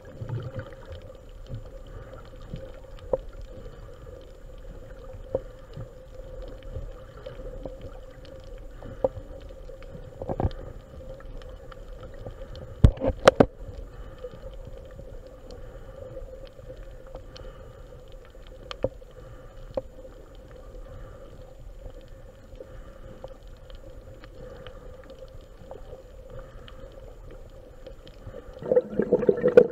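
Underwater reef ambience picked up by a camera in its housing: a steady hum with scattered crackling clicks, a few louder sharp knocks about 13 seconds in, and a louder bubbling rush near the end.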